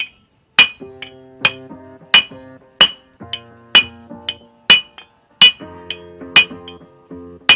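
Hammer striking a hot leaf-spring steel parang blank on an anvil, blows a little under a second apart with a bright ringing ping and lighter taps between, over guitar music.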